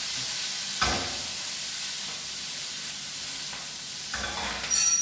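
Smoked tofu cubes and sliced Brussels sprouts sizzling steadily in hot oil in a frying pan, freshly added. A knock of the pan about a second in and a short metallic clatter near the end as the pan is tossed and stirred.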